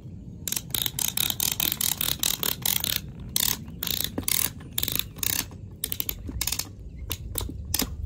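Manual strapping tensioner ratcheting as its lever is pumped, the pawl clicking while it pulls green plastic strap tight around a stack of pallet boards. A rapid run of clicks that thins out after about five seconds.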